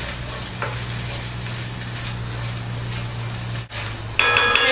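Chorizo frying in a little oil in a hot Dutch oven, a steady sizzle. Near the end a utensil starts scraping and clinking against the metal pot as the chorizo is stirred.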